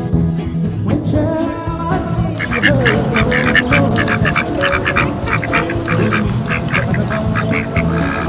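Ducks quacking in a rapid, continuous run over background music, the quacking starting about two seconds in.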